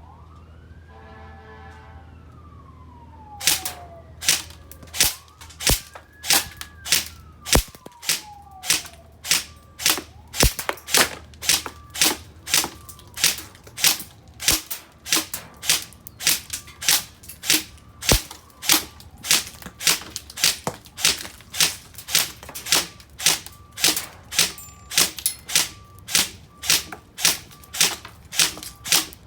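Airsoft Mk18 rifle firing semi-auto, single shots in an even run of about one and a half a second, starting a few seconds in. A siren rises and falls in the background at the start.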